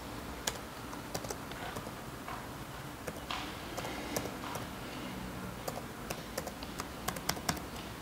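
Keys on a Lenovo IdeaPad laptop keyboard being typed, irregular single clicks and short runs with a quicker flurry of keystrokes near the end: a password being entered at the Windows sign-in screen.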